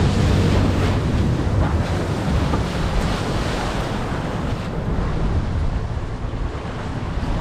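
Wind buffeting the microphone and water rushing past a small boat running at speed under a 30 hp outboard, a steady rushing noise with a deep rumble underneath.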